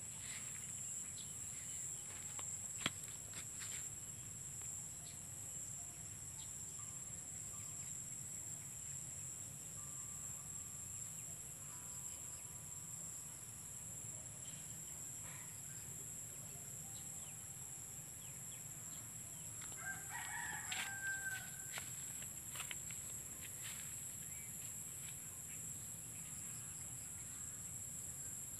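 Rooster crowing once, about twenty seconds in, over a steady high-pitched insect drone, with a few fainter calls before it.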